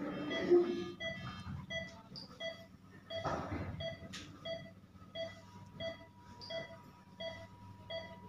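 Operating-room patient monitor giving its pulse beep, a short high beep repeating evenly a little under twice a second in time with the patient's heartbeat.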